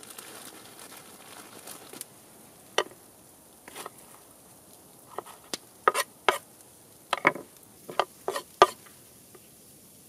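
Knife slicing a sweet pepper on a wooden cutting board: about nine sharp, irregular taps of the blade on the board, most of them in the second half.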